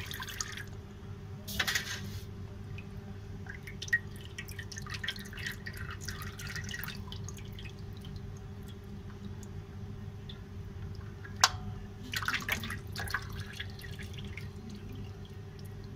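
Used engine oil dripping and trickling from a freshly unscrewed car oil filter and its mount into a metal drain basin, with patches of splashing. A steady low hum runs underneath, and there is one sharp tap about eleven and a half seconds in.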